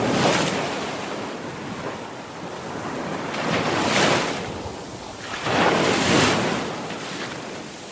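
Sea waves breaking and washing in, the surf swelling and falling away in three surges: one just as it begins, one about four seconds in and the loudest about six seconds in.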